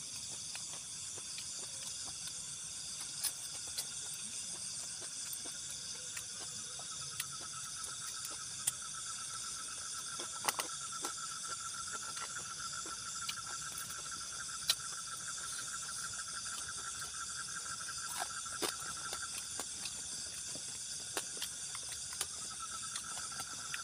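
Steady chorus of night insects trilling in several high, even bands. A lower, pulsing trill joins about seven seconds in. Scattered light clicks and taps of handling dishes sound over it.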